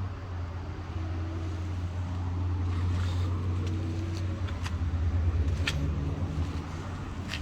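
A motor vehicle's engine running with a steady low drone, with a couple of sharp clicks in the last two seconds.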